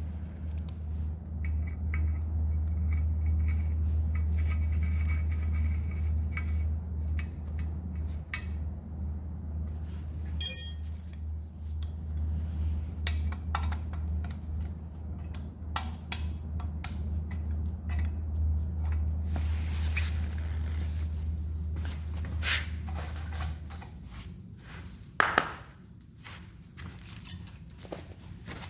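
Small metal model parts clinking, tapping and scraping on a workbench, with a sharp ringing metallic ping about a third of the way in. A steady low hum runs underneath and stops about three-quarters of the way through.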